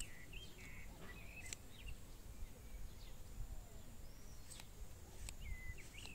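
Birds chirping in short, scattered calls and whistles over a low, steady outdoor rumble.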